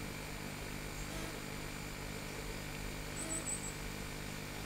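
Quiet outdoor background with a steady low hum and no blast, with a brief faint high chirping about three seconds in.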